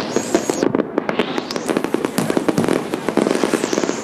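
Fireworks going off in a dense, continuous barrage of rapid pops and bangs.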